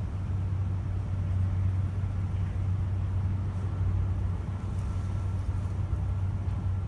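A steady low rumble, even in level throughout, with a faint high tone above it.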